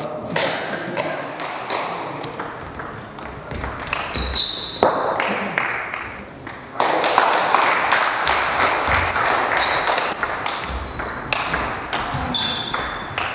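Table-tennis ball clicking sharply off rackets and table in a rally, with high ringing pings, over people talking in the background. The background gets suddenly louder a little after halfway.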